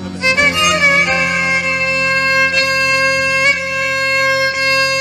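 Violin playing a slow improvised taksim of long held notes, changing pitch only a few times, over a steady low drone.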